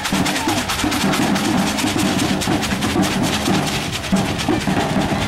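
Percussion music: drums played in a fast, steady run of quick strikes, with pitched tones underneath.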